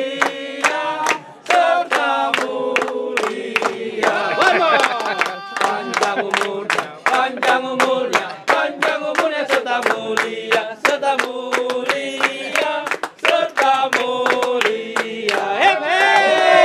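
A group singing a birthday song in chorus, with hands clapping along in a steady beat.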